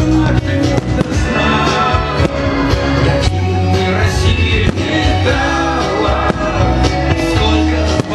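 Music: a song with a steady beat, bass and singing.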